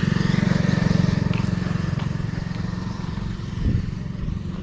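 Motorcycle engine running with a rapid low thumping that grows fainter after about three seconds, with a short knock near the end.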